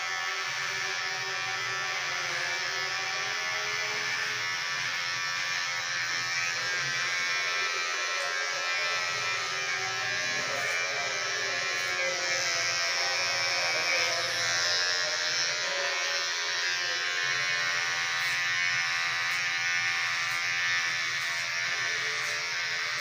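Electric hair clippers running steadily while shaving the hair on the sides and back of the head.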